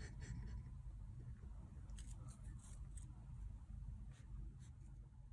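Faint steady low room hum with a scattering of small, sharp clicks, mostly in the second half, from a kitten handling a small plastic object.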